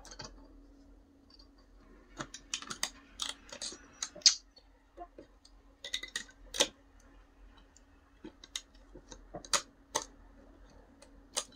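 Irregular light clicks and taps of a steel ruler and small parts against 3D-printed plastic as a small coil spring is worked into place, the loudest about four and six and a half seconds in.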